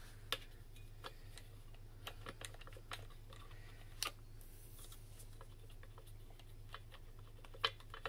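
Scattered light clicks and taps of hands handling a mini stepper's steel frame and fittings, the sharpest click about four seconds in, over a faint steady low hum.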